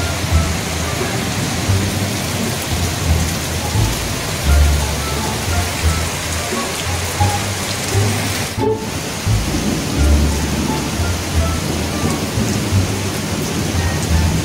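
Heavy tropical downpour: a steady, dense hiss of rain falling on trees, ground and roofs. The sound drops out for a split second about nine seconds in.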